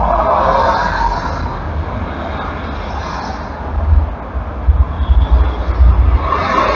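Heavy highway traffic passing close by: engine and tyre noise of vans, cars and city buses over a deep low rumble. It eases off in the middle and builds again in the second half as a city bus comes past.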